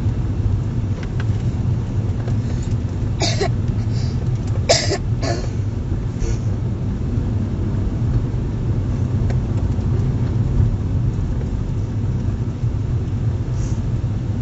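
Steady low rumble of a Kia Rio hatchback's engine and tyres on wet asphalt, heard from inside the cabin, with a few short sharp noises about three and a half to five seconds in.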